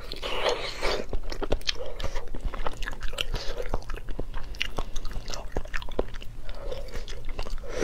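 Close-miked mouth sounds of biting and chewing half-incubated egg (huozhuzi), with many small wet clicks and crackles throughout.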